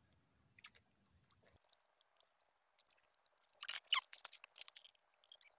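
Mostly near silence with a few faint clicks, then about three and a half seconds in two short, sharp scraping crunches close to the microphone, followed by a few light ticks: handling noise as the camera is moved over a wooden deck.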